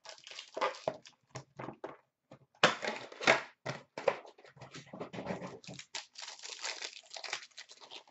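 Hockey card box packaging being handled: scattered rustles and scrapes, with a louder flurry about two and a half seconds in. Then, from about six seconds in, dense crinkling and tearing as the foil-wrapped card pack is ripped open.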